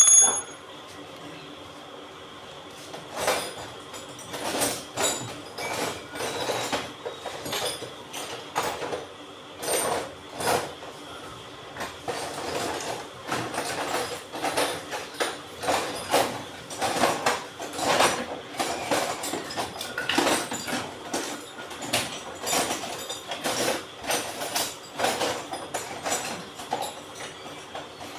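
Metal parts of a water pump being worked by hand: a bright metallic clink rings briefly at the start, then irregular scraping, tapping and clinking of metal on metal goes on, several knocks a second.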